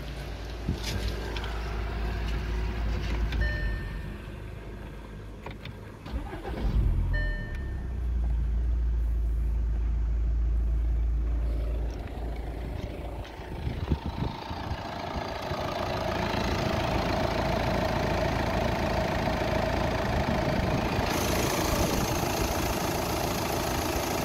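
Audi 2.0 TDI (CAGA) four-cylinder common-rail diesel starting, then idling steadily, louder and brighter near the end as it is heard close up in the open engine bay. Two short electronic chimes sound in the first several seconds.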